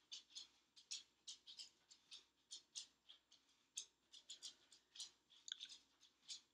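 Faint, irregular soft taps and rustles, a few each second: hands, sleeves and a wristwatch brushing and knocking against each other and a sweatshirt while signing.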